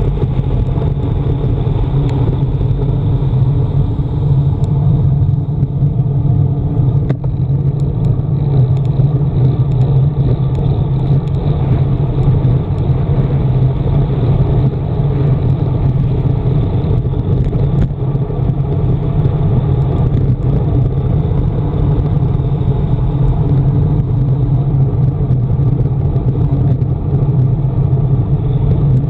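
Steady, loud wind rumble buffeting a handlebar-mounted camera's microphone as a road bike descends at speed, mixed with the rush of tyres on tarmac. It is an unbroken low roar with no distinct events.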